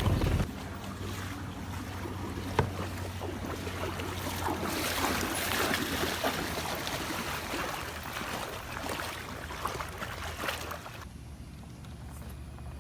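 Water sloshing and splashing as a person wades through floodwater dragging a Pelican case, with one sharp knock a couple of seconds in; the splashing dies down near the end.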